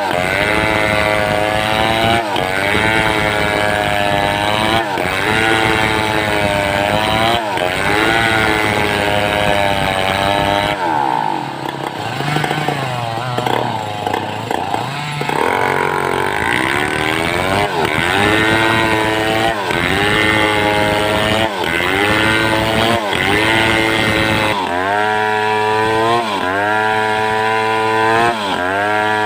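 Home-built two-stroke chainsaw ripping mindi wood lengthwise. Its engine note dips and recovers about every two and a half seconds, drops lower and unsteady for a few seconds in the middle, then runs higher and steadier near the end.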